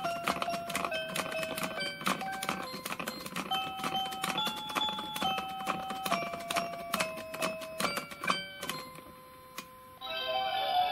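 Electronic melody from a light-up PreCure A La Mode Sweets Pact toy compact: a bright beeping tune with a clicking beat, ending about nine seconds in on a single held tone. A new tune, with a synthetic sung voice, starts about ten seconds in.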